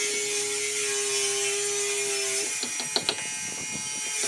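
A small power tool's motor runs at a steady pitch and stops about two and a half seconds in. A quick run of sharp clicks follows near the three-second mark.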